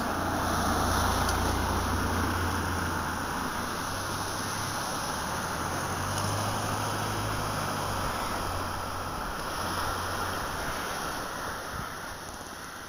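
Steady wash of sea waves and wind with a low rumble underneath, fading out near the end.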